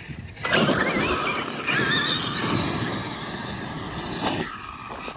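Large brushless electric RC car launching across loose gravel: a high motor whine that wavers in pitch over the hiss and spray of the tyres throwing gravel. It starts about half a second in and fades after about four seconds as the car pulls away.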